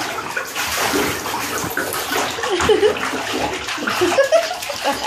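A toddler splashing in bath water in a tub: continuous sloshing and splattering.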